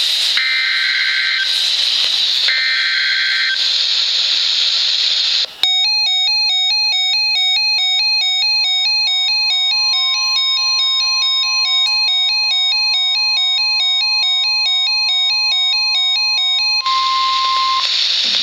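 NOAA Weather Radio Severe Thunderstorm Warning alert on a Radio Shack 12-522 weather radio: two short bursts of screechy SAME data-header tones over radio hiss, then the radio's electronic alarm beeping in a fast two-pitch warble for about eleven seconds. From about eight seconds in, the steady single-pitched NWR warning alarm tone sounds beneath it and carries on alone for a moment after the beeping stops, before the hiss returns.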